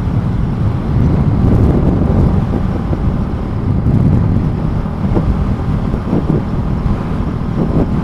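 Gusty wind buffeting the microphone over the steady running of a Honda Grom's 125 cc single-cylinder engine at cruising speed, the rider heading into a strong headwind.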